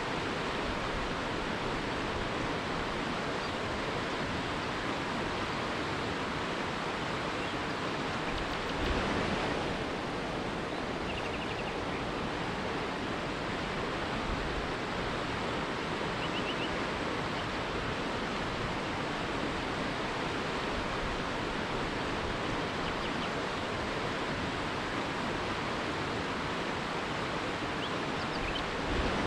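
River rapids: a steady rush of fast-flowing water, swelling briefly twice. A few faint bird chirps sound over it.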